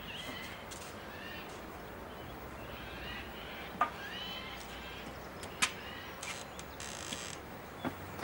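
Birds calling in open-air ambience, with a few short sharp knocks.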